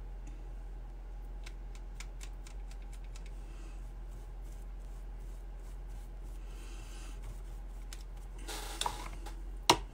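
Faint, scattered small taps and clicks of a paintbrush working in a metal watercolor pan set, over a steady low hum. Near the end comes a brief rustle and then one sharp click.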